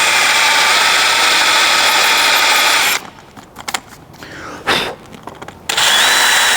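Power drill boring a hole with a 3/8-inch bit, running steadily. It stops about three seconds in, followed by a few quieter handling sounds and one short sharp knock. It starts up again with a thin high whine near the end.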